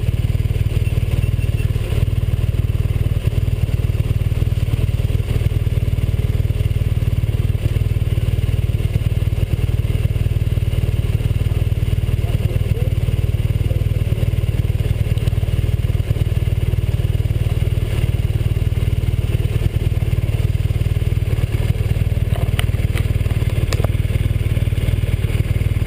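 Motorcycle engine idling steadily at a standstill, a continuous low rumble, with a few sharp clicks near the end.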